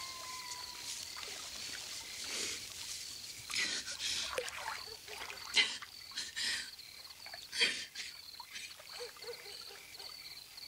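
Crickets chirping steadily, with several short splashes and trickles of water from a swimming pool, the loudest about five and a half and seven and a half seconds in.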